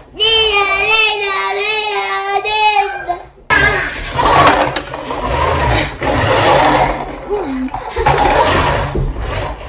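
A child's high voice holds a long wavering note for about three seconds. It then breaks off into close rustling and knocking noise that runs to the end.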